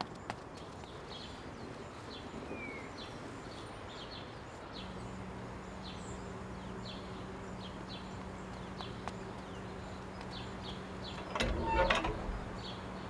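A gate being opened, a short rattling clatter about a second and a half before the end. Under it, a car engine idles with a steady low hum that starts about five seconds in, and short high chirps repeat throughout.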